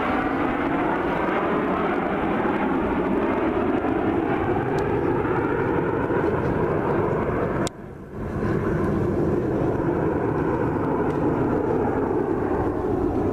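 Jet noise from a nine-plane formation of Snowbirds CT-114 Tutor jets, each with a single turbojet, flying overhead: a steady rumbling rush whose tone slowly shifts. The sound drops out abruptly with a click about eight seconds in, then comes back.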